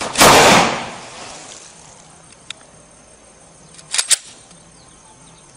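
A single gunshot from a Taurus 24/7 pistol just after the start, with the report echoing away over about a second. It goes off with the safety engaged, only from being shaken: an unintended discharge, the sign of a defective safety and firing mechanism. About four seconds in comes a short pair of sharp clicks.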